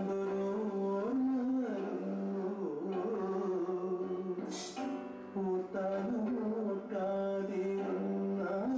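Background music: a melody over a steady low drone that is held throughout.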